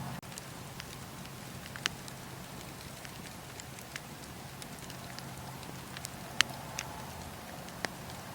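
Wood fire in a fireplace crackling: a steady hiss with a few sharp pops, the loudest about six seconds in.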